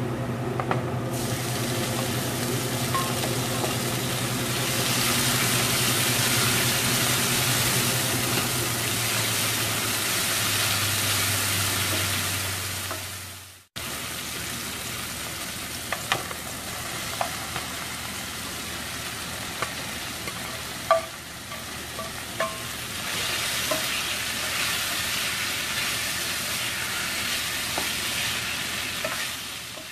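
Chopped onion and garlic sizzling in oil in a frying pan as they are stirred, over a low hum. After a brief break, diced tomatoes frying with a steady sizzle, with sharp clicks and taps of the spatula against the pan.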